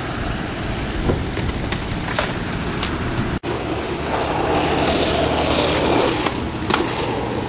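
Skateboard wheels rolling over rough asphalt, a steady gritty rumble with a few sharp clacks of the board.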